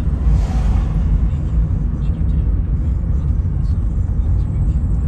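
Road noise inside a moving car: a steady low rumble of engine and tyres. Just under a second in, an oncoming pickup truck passes with a brief whoosh.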